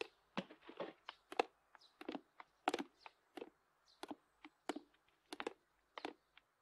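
Irregular light footsteps and knocks on a wooden floor, several a second, with no steady sound between them.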